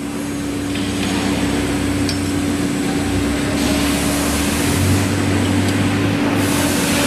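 Machinery running steadily: a constant hum holding one pitch over a low drone, with a hiss that grows brighter a little past halfway and overall loudness creeping up slightly.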